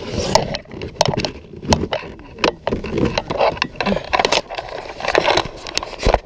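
Irregular knocks, clicks and rattles of gear being handled against a plastic kayak hull.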